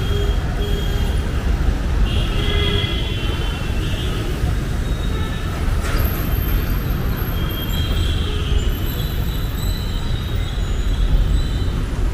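Steady low rumble of moving vehicles, with faint high tones coming and going above it.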